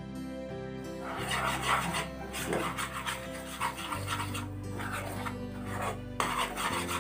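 A spoon scraping and stirring melting chocolate around a nonstick pan, in repeated rasping strokes about twice a second, starting about a second in, over soft background music.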